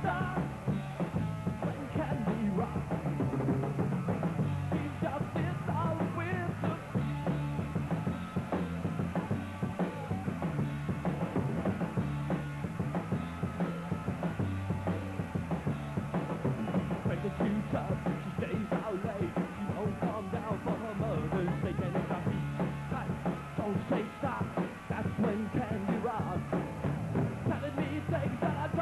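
Rock band playing live through an instrumental break: electric guitars, electric bass and a drum kit, with no vocals. The bass and drums keep a steady beat.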